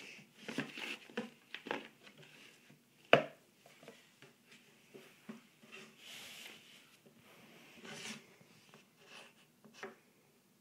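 Small board books and their cardboard box being handled on a wooden table: soft rustling and light knocks, with one sharp knock about three seconds in.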